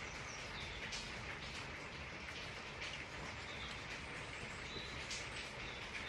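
Steady rainfall, a continuous hiss with many small drop ticks, with a few short bird chirps heard through it.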